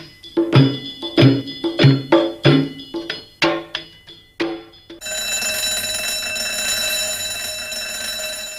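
Opening theme music of struck, ringing percussive hits, then about five seconds in an electric school bell rings steadily for about three and a half seconds and cuts off sharply, signalling the end of the lesson.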